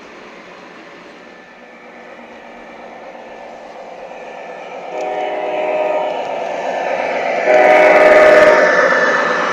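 The sound system of an MTH RailKing ES44AC O-gauge model diesel locomotive (Proto-Sound 3.0): engine and rolling noise running low, then the horn chord sounding from about halfway in, loudest as the locomotive rolls close past near the end.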